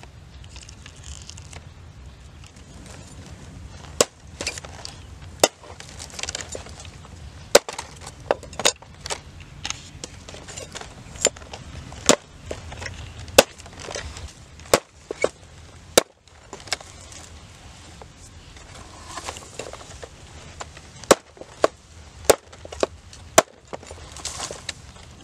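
A cleaver chopping a plant stalk on a wooden chopping board: about twenty single sharp chops, irregularly spaced a second or so apart.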